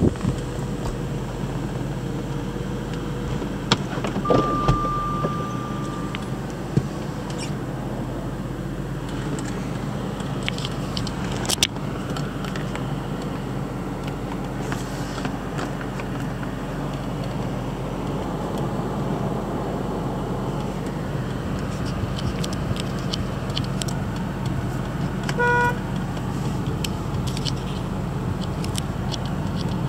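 Jaguar XK8's V8 idling steadily with the air conditioning blowing, heard from inside the cabin as a constant low hum. Over it come a few sharp clicks, a steady electronic tone for about two seconds around four seconds in, and a short chime near the end.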